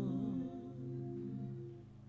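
Soft background worship music: the end of a sung line, then a held chord that fades away near the end.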